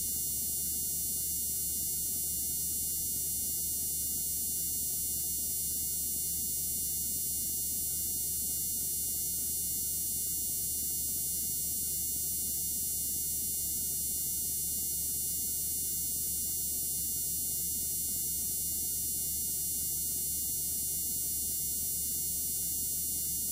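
Steady hiss with a low hum beneath it, unchanging throughout, and no other sound: the noise floor of a blank stretch of recording.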